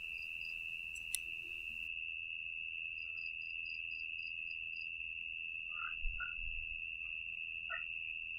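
Night chorus of insects and frogs by the water: a steady high insect trill throughout, a run of quick high chirps about five a second a few seconds in, and a few short frog calls near the end. One brief click about a second in.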